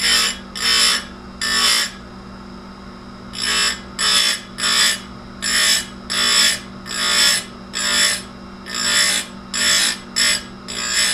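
Electric chainsaw-chain grinder (Tecomec Jolly Evo) running with a steady hum while its grinding wheel is brought down onto the chain again and again. It gives about a dozen short, hissing grinding strokes, roughly one every 0.7 s, with a pause of about a second and a half near the start.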